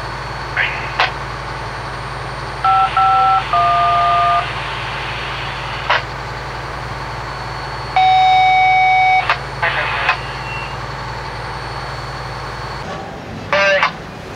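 Railroad radio scanner traffic: two short series of two-tone touch-tone beeps about three seconds in, a longer steady beep about eight seconds in, and brief clicks and bursts of static as the radio keys up, over a steady low hum.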